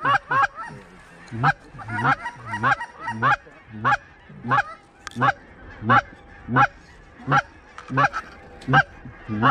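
Goose honks in a steady, evenly paced series, roughly three every two seconds, each call loud with a quick break in pitch.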